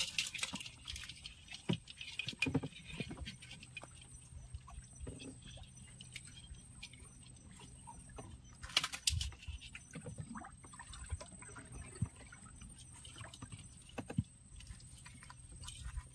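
Small knocks, clicks and water drips and splashes from a small boat as a baited crab line is drawn in by hand, with a louder burst of noise about nine seconds in and a low steady hum underneath.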